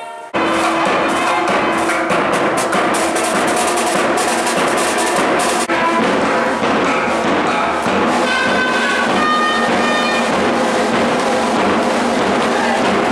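Loud South Indian temple procession music: nadaswaram double-reed pipes playing a wavering melody over thavil drumming. It cuts in abruptly just after the start, with drumming dense in the first half and the reed melody standing out clearly in the second half.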